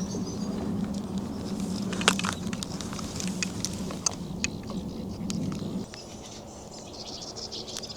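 Outdoor morning ambience: scattered short, high bird calls over a steady low hum that stops about six seconds in.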